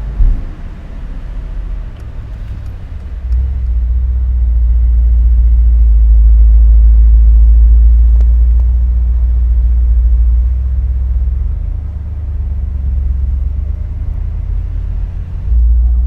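Mercedes-AMG SL 63's 4.0-litre twin-turbo V8 running under way, a deep steady rumble that swells louder about three seconds in and eases off after about ten seconds, heard from the open-top cabin.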